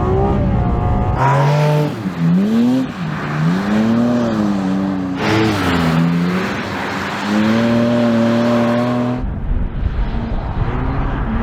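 Porsche 718 Cayman GT4 RS's naturally aspirated flat-six revving up and falling back again and again as the car is drifted, with a hiss of tyre squeal underneath.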